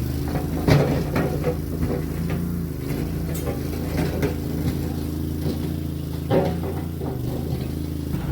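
Mini skid steer's engine running steadily, with scattered knocks and clanks, the loudest just under a second in and again about six seconds in.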